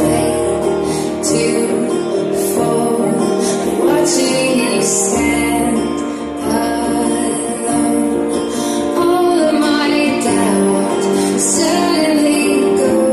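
Recorded music accompanying the act: a female voice singing over long held chords, playing steadily and loudly throughout.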